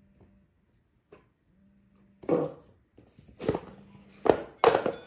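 Cardboard phone boxes being pushed and knocked about on a table: a short rustle and knock a little over two seconds in, then three more, the last two close together near the end.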